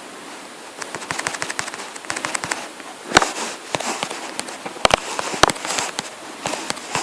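Irregular sharp clicks and taps, in quick runs of several a second with a few louder single knocks between them.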